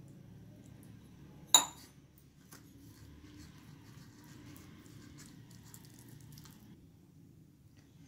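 A stainless steel tumbler set down with a single sharp, ringing clink about a second and a half in. Then fingers squish and scrape faintly against a steel plate, mixing flour and water into batter.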